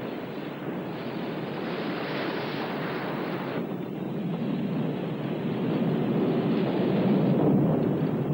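Film sound effects of a burning warship: a steady, dense rumble of flames and wind, with a brighter hiss that cuts off abruptly about three and a half seconds in. The rumble swells louder toward the end.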